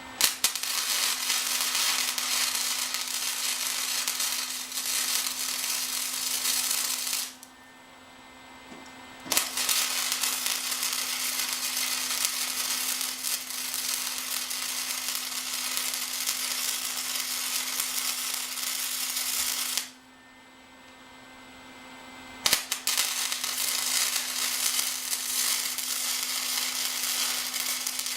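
Electric arc welding on sheet-metal patches on a steel VW gas tank: three long runs of steady crackling sizzle. Each starts with a sharp snap as the arc strikes, with short pauses between the runs as the welder stops and restarts.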